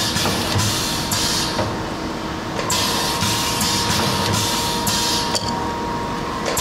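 Pneumatic pad printing machine cycling: a quick series of air hisses and sharp clicks as the silicone pad and ink cup shuttle back and forth, pausing for about a second partway through before the strokes resume.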